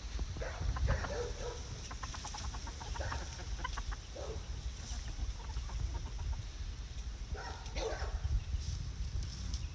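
Chickens clucking in short scattered calls, with a quick run of clucks about two to four seconds in, over a steady low rumble.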